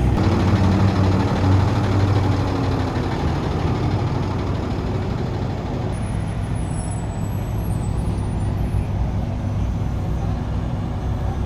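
A car engine running as a car drives by, its note falling over the first few seconds, then settling into a steady rumble.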